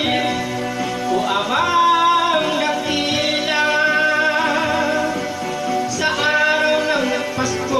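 Music: a Tagalog gospel song over a backing track, with a man's singing voice holding long notes that slide between pitches.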